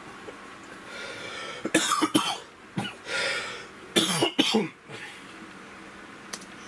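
A person coughing several times: a cluster of coughs about two seconds in and another about four seconds in.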